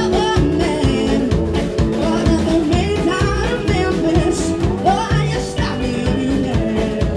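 Live band playing: a woman singing lead over electric guitar, bass and a drum kit keeping a steady beat.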